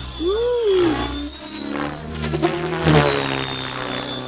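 ALIGN T-REX 700X electric radio-controlled helicopter flying hard 3D aerobatics. The rotor and motor whine rise and fall in pitch as it manoeuvres, with a sharp blade whoosh about three seconds in.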